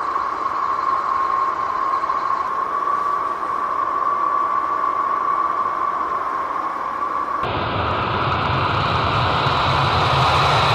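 Jet aircraft engines running, a steady loud rush with a high whine. About seven seconds in it cuts suddenly to a different engine sound, with a deeper rumble under a higher whine.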